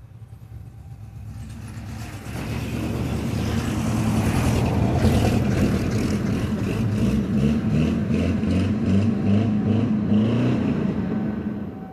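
A motor vehicle passes close by, building to loud over a few seconds and fading away near the end.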